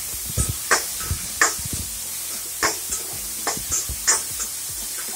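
A spatula scraping and knocking against a metal kadai at irregular intervals as it stirs sliced onions and tomatoes, over a steady sizzle of the vegetables frying in oil. The onions and tomatoes are being sautéed until soft.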